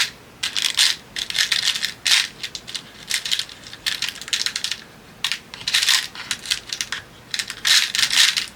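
Small hard craft pieces clicking and clattering in a container as a hand rummages through them, in repeated short bursts.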